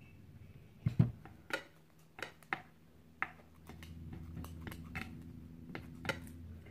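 Chopsticks clicking and tapping against a ceramic plate while mixing and picking up rice noodles, with one louder knock about a second in. A low steady hum sets in about halfway.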